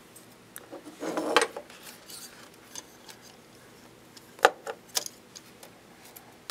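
Metal gimbal brackets and a brushless motor handled and set down on a tabletop: a clatter about a second in, then a few sharp clicks and knocks between four and five seconds.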